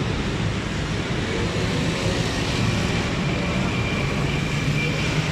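Steady low rumble of motor-vehicle noise, even in level throughout.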